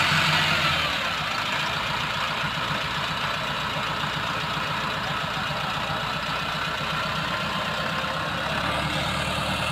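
Tractor's diesel engine running steadily with an even pulsing beat; its low note changes about a second in and then holds.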